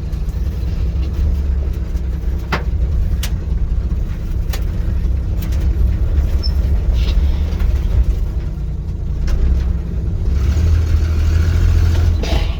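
1979 Jeep J10's 258 inline-six engine running steadily as the pickup is driven, with a few sharp clicks or knocks in the first few seconds.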